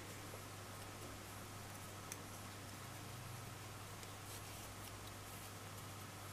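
Quiet room tone: a faint steady low hum under a soft hiss, with one small click about two seconds in.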